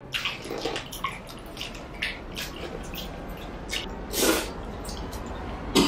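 Close-up wet eating sounds of people eating a saucy seafood boil: chewing, lip smacks and sucking noises in short scattered clicks, with one longer, louder wet sound about four seconds in.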